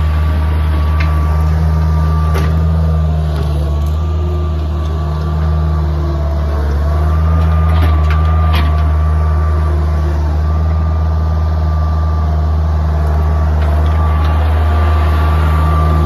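Bobcat 743 skid-steer loader's engine running steadily as the machine works and drives, with a steady high whine over its low hum and a few sharp knocks.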